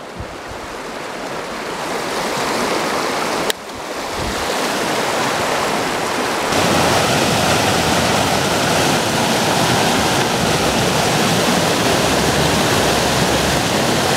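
Rushing whitewater of creek rapids at a small waterfall: a steady hiss that grows louder over the first several seconds, then holds steady. A single sharp click about three and a half seconds in.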